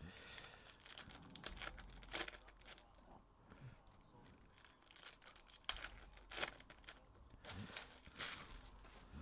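Foil trading-card pack wrappers crinkling and stacks of baseball cards being handled and squared up: a faint low rustle broken by a handful of short, sharp crinkles and card snaps.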